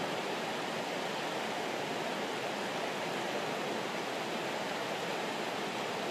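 Rushing river rapids: white water tumbling over rocks in a steady, unbroken rush.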